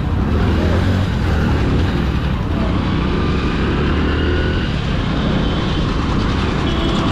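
Hero Splendor Plus motorcycle's 97cc single-cylinder four-stroke engine running steadily while riding, with road noise, heard from the rider's seat.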